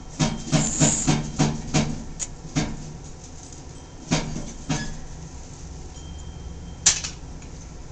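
A small child's hand slapping and patting a glass door pane: a quick run of slaps over the first few seconds, then a few single slaps.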